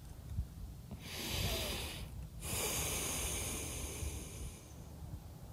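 A person breathing near the microphone: a long hissy breath about a second in, a brief pause, then a second, longer breath.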